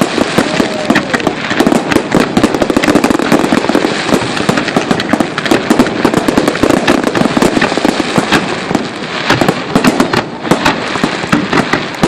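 Fireworks display: a dense, continuous barrage of bangs and crackling, many reports a second, with no break.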